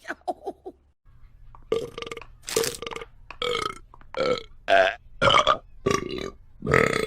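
Cartoon female character's voiced burps: after a few small faint blips, a string of about eight short belches in quick succession begins about two seconds in.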